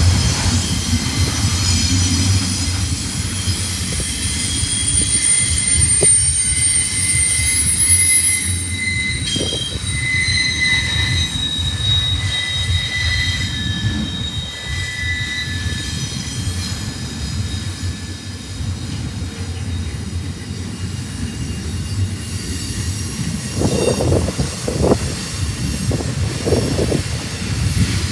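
Loaded double-stack container well cars rolling past on steel rails: a steady low rumble with high-pitched wheel squeal. A few sharp clanks near the end.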